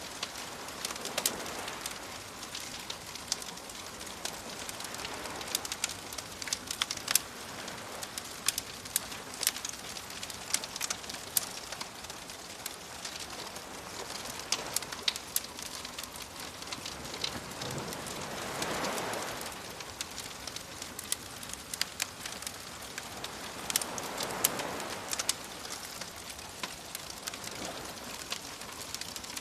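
Campfire crackling with frequent sharp pops, over soft waves washing in; the waves swell and fall back a few times, most strongly about two-thirds of the way through.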